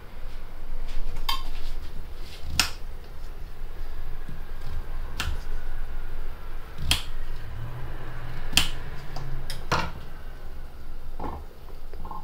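A kitchen knife chopping potato on a granite cutting board. The blade knocks sharply on the stone about seven times, a second or two apart.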